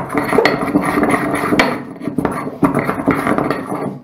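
Wooden pestle pounding and grinding a clove in a ceramic mortar: a continuous run of knocks and gritty scraping that stops at the end.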